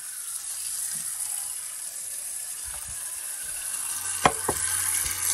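Water running from a kitchen tap into a pot, a steady hiss that grows slowly louder as it fills. A single sharp knock about four seconds in.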